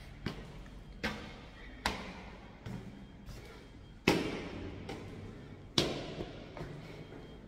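Footsteps on stairs in an echoing stairwell, roughly one step a second with a short echo after each, two of them louder about four and six seconds in.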